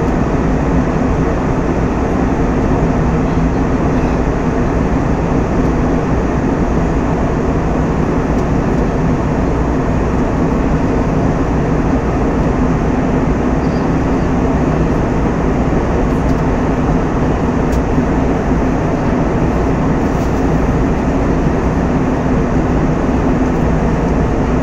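Steady cabin noise of an airliner in cruise flight: an even, loud rushing of engines and airflow with a low hum underneath, unchanging throughout.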